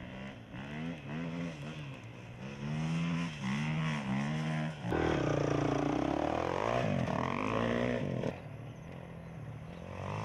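Off-road motorcycle engines accelerating away, the pitch rising and dropping again several times as the bikes shift up through the gears. About five seconds in, a louder close pass lasts about three seconds, then the sound drops back and builds again near the end.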